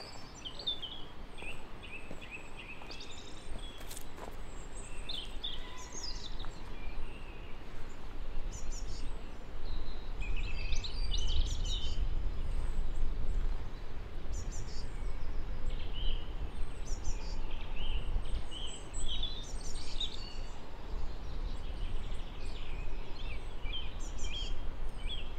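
Several songbirds singing and chirping in short phrases, over a low rumble of wind on the microphone that grows stronger about a third of the way in.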